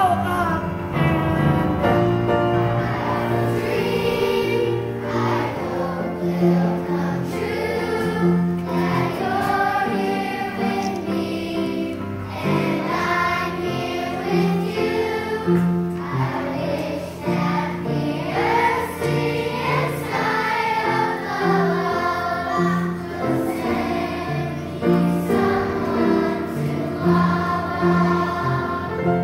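Children's choir singing together over instrumental accompaniment.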